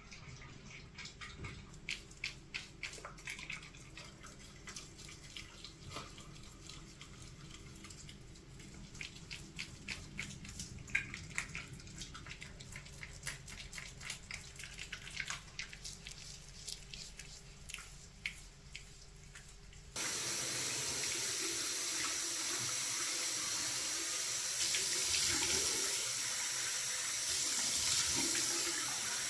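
Light clicks and taps of small objects being handled, then, about two-thirds of the way through, a tap is turned on and water runs steadily into a sink.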